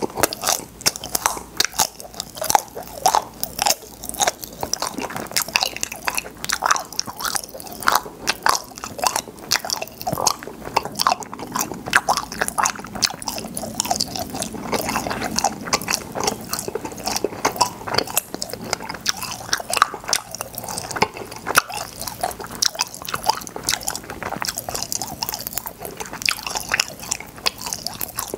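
Close-miked eating of popping-candy cotton candy: rapid crackling and crunching clicks, many a second, mixed with chewing.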